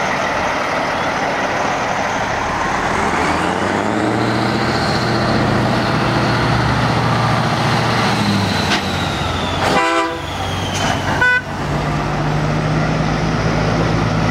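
Heavy diesel trucks driving slowly past, engines running under a high whine that slowly falls in pitch. Two short truck-horn blasts sound about two-thirds of the way in, a second or so apart.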